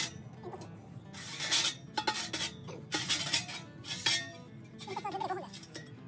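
Stainless-steel chimney pipe sections of a Gstove Heat View XL wood stove being taken out of the stove body and set down, metal clinking and scraping against metal: several sharp clinks and a few longer sliding scrapes.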